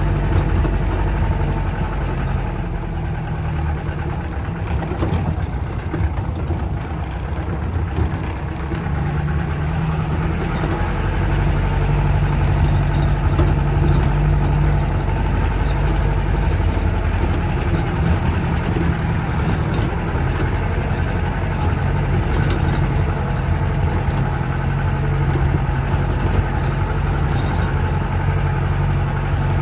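Off-road jeep engine running steadily at low revs, the engine note shifting a little in pitch as it goes.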